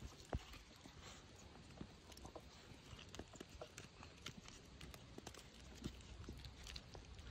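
Faint, irregular clicks and taps, with one sharper knock about a third of a second in.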